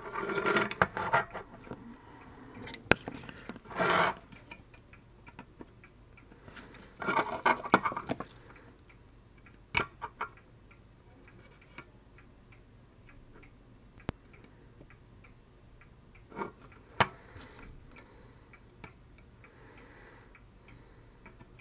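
Small clicks and rattles of a circuit board and hand tools being handled while a capacitor is fitted and soldered in: a few short bursts of rattling in the first eight seconds, then only a few single sharp clicks.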